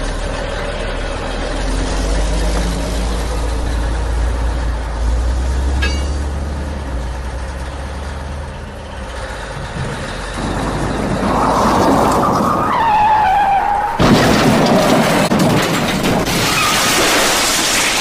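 Low, steady heavy-truck engine rumble, a dubbed sound effect for a toy dump truck, fading out about halfway through. A loud crashing clatter breaks in about three-quarters of the way in and runs to the end.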